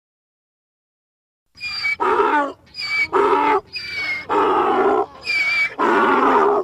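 Donkey braying: starting about a second and a half in, four hee-haw cycles, each a high, thin drawn-in 'hee' followed by a lower, fuller 'haw', cut off abruptly at the end.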